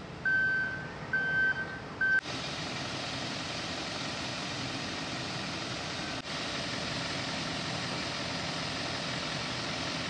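Three short electronic beeps, each held at one pitch, in the first two seconds. Then, after an abrupt change, a steady hissing noise.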